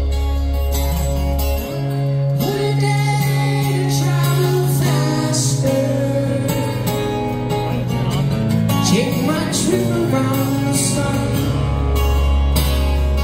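Live rock band playing: a man's high singing voice over acoustic guitar, with cymbal hits and a deep sustained bass note that drops out about two seconds in and comes back near the end.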